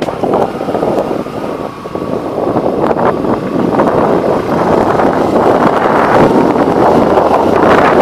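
Heavy wind buffeting on the microphone of a moving motorcycle, with the bike's engine running underneath.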